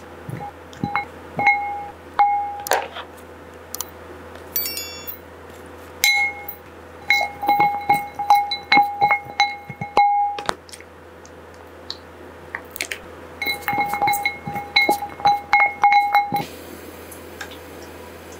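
A spoon clinking again and again against a glass mixing bowl while duck pieces are tossed in it, each strike giving a short bell-like ring. The clinks come in quick bursts with pauses between them, the longest runs about 7 to 10 seconds in and again about 13 to 16 seconds in.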